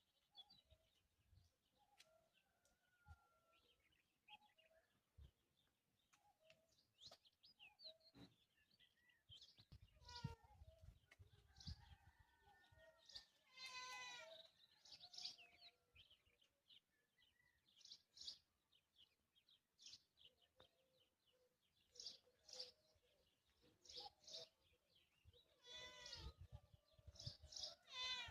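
Faint birdsong: many short, high chirps and calls, broken twice by a longer, harmonically rich animal call, once midway and once near the end.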